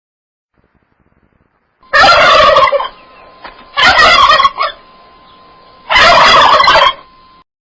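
Domestic turkey gobbling three times, each gobble a loud rapid warble lasting just under a second, about two seconds apart.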